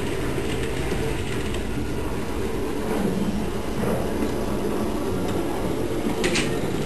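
LEGO monorail train running along its track: the motor and gears make a steady low whirr, with a couple of short sharp clicks near the end.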